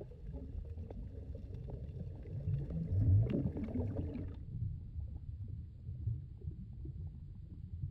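Underwater sound: a hookah diver's exhaled air bubbling and crackling over a constant low rumble. The bubbling is loudest about three seconds in and cuts off abruptly about halfway through, leaving only the low rumble.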